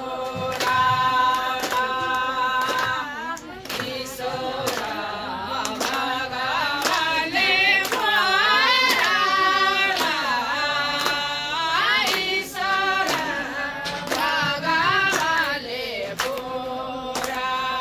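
A group of voices singing a song together, with steady rhythmic hand clapping.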